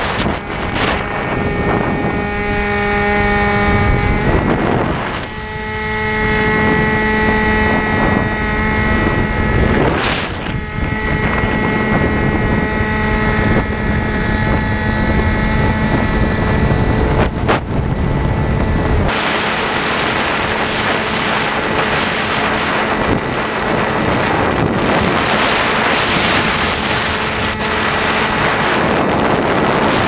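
Strong wind buffeting the microphone of a camera riding on a Bixler RC glider, over a steady hum from the plane's electric motor and pusher propeller. The hum drops out briefly about five seconds in, then carries on and grows fainter in the second half as the wind rumble eases.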